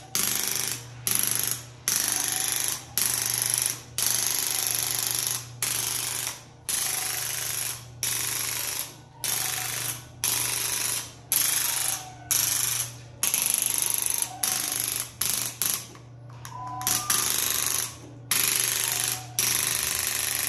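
Handheld ProSoft soft-tissue treatment instrument running in short mechanical bursts, switching on and off about once a second, as it is pressed to points around the shoulder to stimulate the mechanoreceptors in the tissue.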